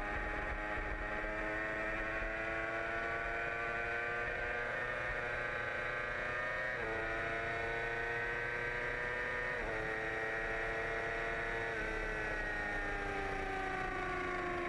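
2008 Yamaha R6's inline-four sport-bike engine heard from a camera mounted on the bike, pulling through the gears. The pitch climbs slowly and drops suddenly at three upshifts, about halfway through and twice more. Near the end the rider eases off and the pitch falls steadily.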